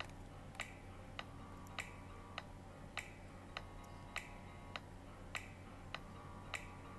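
A steady ticking beat in background music, one sharp tick about every 0.6 seconds, each with a short ring, over a faint low hum.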